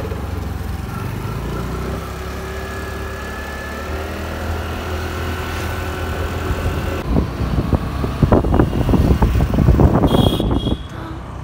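Motor scooter running while being ridden along a road. From about seven seconds in there is louder, gusty wind noise buffeting the microphone.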